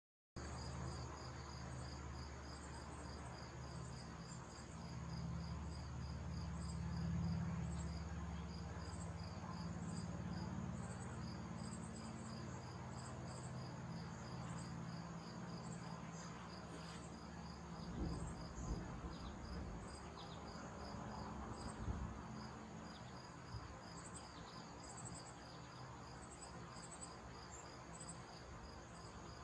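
Insects chirping in a steady run of rapid, evenly spaced pulses at two high pitches, with a low rumble underneath through the first half and a couple of soft thumps later.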